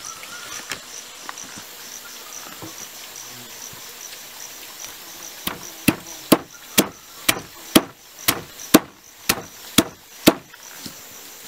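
A knife chopping on a wooden block: about ten sharp chops, roughly two a second, beginning about halfway in. Behind them, insects chirp with a steady high pulse.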